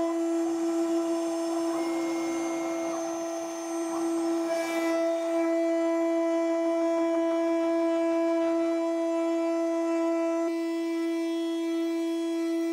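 CNC router spindle whining at a steady high pitch while a small end mill cuts slots in a black plastic plate, with a hiss of cutting over the first few seconds. The spindle runs fast enough that the plastic melts at the cutting edge.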